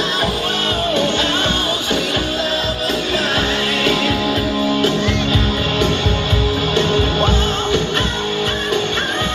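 Loud recorded music with guitar, a steady beat and a singing voice, played over speakers.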